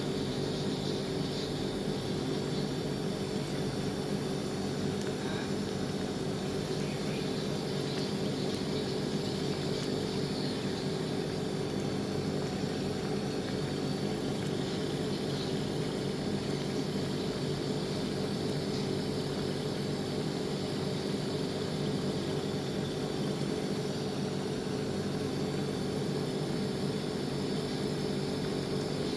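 Covered pan of shrimp in garlic butter simmering, its bubbling under a steady mechanical hum that holds one even pitch throughout.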